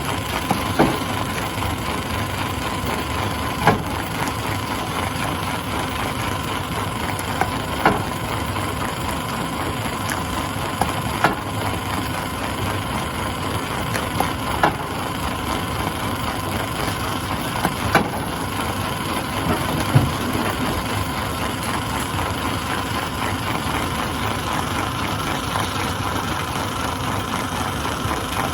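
Stone crusher running steadily, with sharp cracks of rock breaking in it every three to four seconds, the loudest about twenty seconds in.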